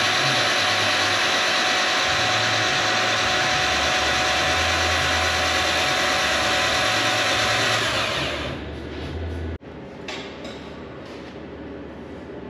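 Starter motor cranking the R32 Skyline GT-R's RB26DETT straight-six, a loud steady whir that stops about eight seconds in. Quieter workshop noise with light clicks follows.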